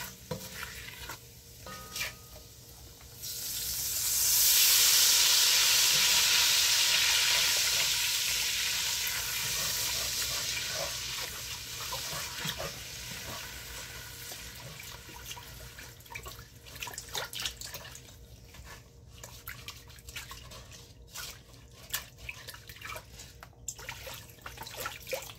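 A spatula scrapes the bottom of a hot enamelled cast-iron Dutch oven. Then chicken broth is poured in to deglaze it: a loud sizzling hiss starts about three seconds in and slowly dies away, with pouring and scraping under it.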